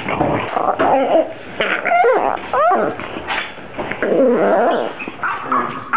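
Small dog vocalizing in a string of drawn-out, wavering whines and moans that glide up and down in pitch, sounding like Chewbacca or a crying baby.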